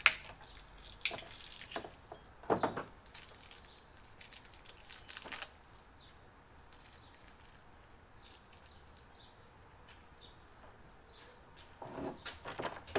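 Scattered clicks and knocks of small parts being handled while a small starter battery and its wires are fitted into the generator's battery compartment, the loudest knock about two and a half seconds in. A few seconds of quiet follow, then a short clatter near the end.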